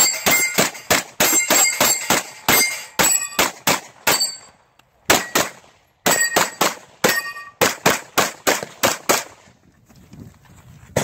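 Rapid pistol fire from a 9mm Major open-class competition pistol: fast strings of shots, several a second, with steel targets ringing after hits. The firing breaks off briefly about halfway through and again for over a second near the end.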